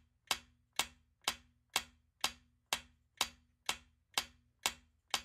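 Countdown-timer ticking sound effect: short, sharp clock-like ticks, about two a second, evenly spaced.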